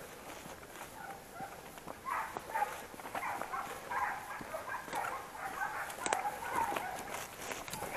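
Segugio Italiano scent hounds baying over and over, the voice of hounds running a hare, with footsteps crunching through dry grass.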